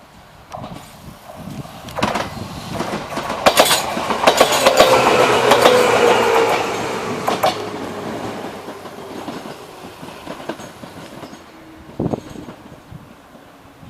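An Enshu Railway electric train passing over a level crossing. Its wheels clatter over the rail joints, with a tone falling in pitch as it goes by; the sound builds to a peak about five seconds in and then fades away. A single sharp click comes near the end.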